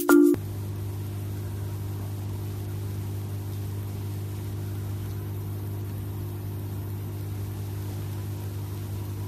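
A moment of music with a shaker cuts off right at the start, then a steady low hum with a faint hiss runs on unchanged.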